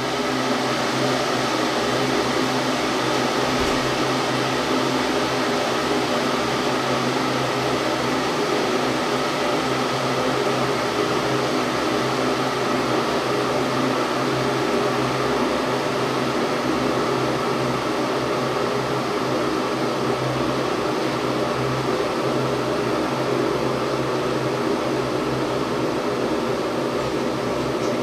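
Electric water-heating machine running as it heats water: a steady hiss with a low electrical hum, unchanging, as the water warms toward a boil.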